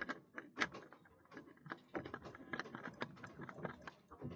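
Faint, irregular light clicks and scrapes of a new spin-on oil filter being screwed onto a Volvo Penta MD marine diesel engine by hand.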